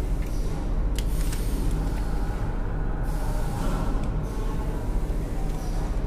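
Steady low background hum, with a light click about a second in as wires are handled on a plastic switch-and-socket board.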